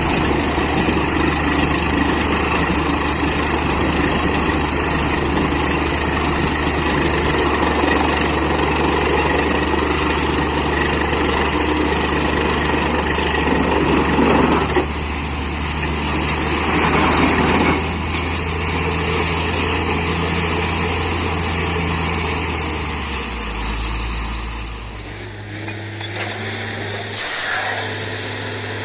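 Borewell drilling rig's engine running steadily under a broad machine noise. Near the end its low note changes and the sound gets a little quieter.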